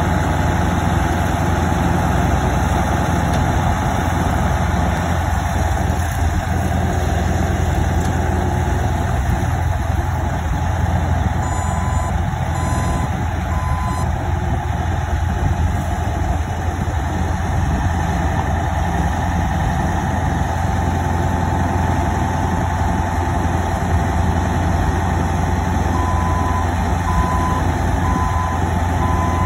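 1985 Jones tub grinder running steadily with a deep, even hum. A reversing alarm beeps in two runs of evenly spaced beeps, about twelve seconds in and again near the end, from a skid-steer loader backing up beside it.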